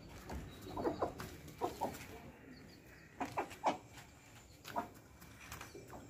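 Aseel hen clucking: short, soft clucks in small irregular groups every second or so.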